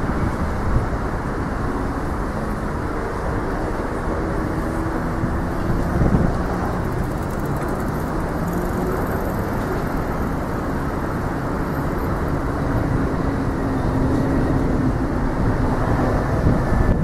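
Steady noise of city road traffic, with faint engine tones rising and falling as vehicles pass.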